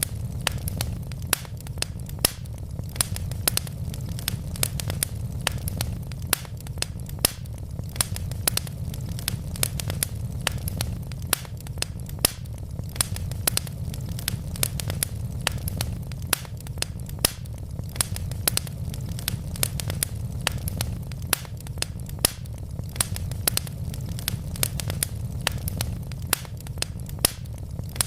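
Wood logs burning in a fireplace, crackling and popping in many irregular sharp snaps over a steady low rumble.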